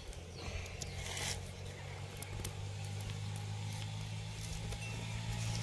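A motor engine running steadily at idle, a low even hum, with scattered light clicks and a brief rustle about a second in.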